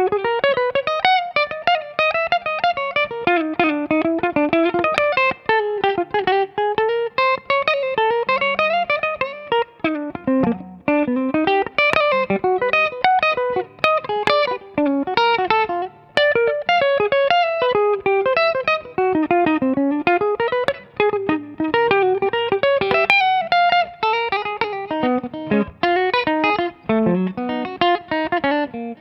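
Gibson SG electric guitar playing a lead line: quick runs of single notes with frequent string bends.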